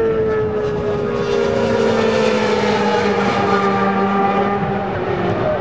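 A pack of 750 Superbike-class racing motorcycles running at high revs, several engine notes overlapping and slowly dropping in pitch.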